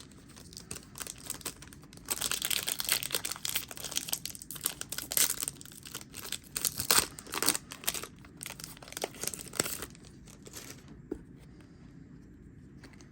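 A Yu-Gi-Oh! booster pack's foil wrapper being torn open and crinkled, a dense crackling that runs for several seconds and dies away about ten seconds in.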